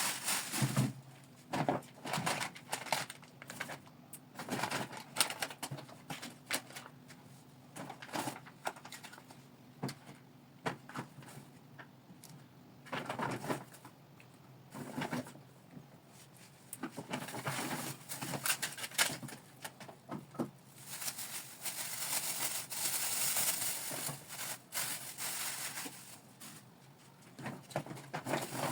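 Shopping bags and packaging crinkling and rustling, with irregular light taps and clicks as items are handled and set down.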